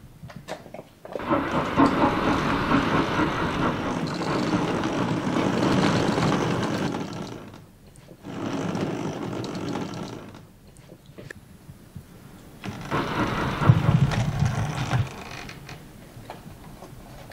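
O gauge model tank locomotive running on the layout, its motor and gears whirring as it shunts. It runs in three spells with pauses between, the first the longest.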